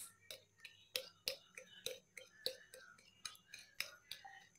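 Fork clicking against a glass bowl while beating eggs into mashed banana for pancake batter: faint, quick ticks about three times a second.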